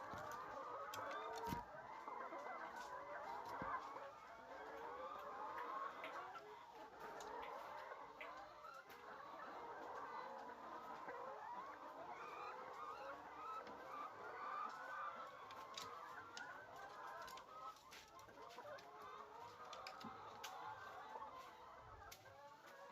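A flock of birds calling continuously, many short chirps and clucks overlapping into a steady chatter.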